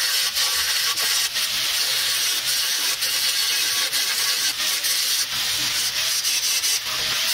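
Grinder working the outside weld seams of a welded steel bumper: a steady, harsh grinding hiss with a few brief sharp catches.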